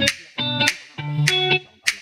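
Background music: short chords repeating in a quick rhythm, with sharp hits between them.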